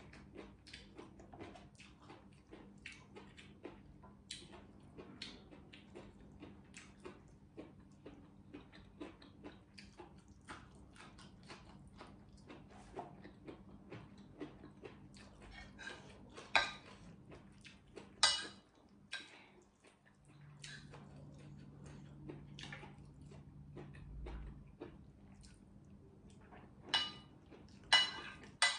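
Close-up eating sounds: soft chewing and mouth clicks, with a metal spoon clinking and scraping on a ceramic plate a few times, loudest about two thirds of the way in and near the end, over a faint steady hum.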